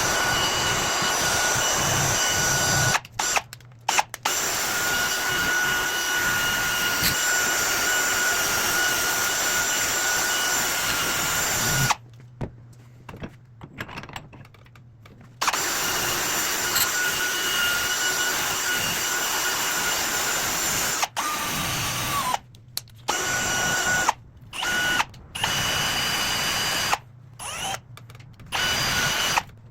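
Electric drill running a brush to scrub rust off the metal of an old hand brace, with a steady whine. The drill stops and starts again several times, once with a pause of a few seconds about halfway through.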